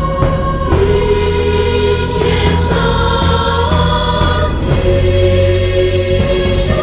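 Music with choir-like voices holding long notes that shift in pitch every second or so, over a steady low bass.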